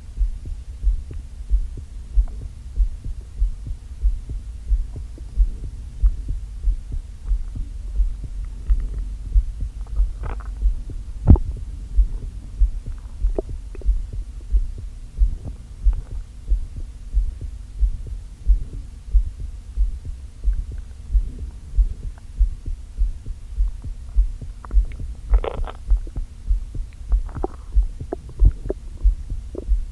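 Close-miked belly: a steady pulse thumping a little more than once a second, with a few short gurgles of an upset stomach over it, the longest about 25 seconds in. The stomach is acting up after food eaten too quickly on an empty gut.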